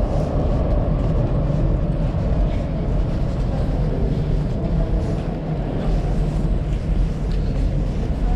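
Steady low rumble of an underground metro station.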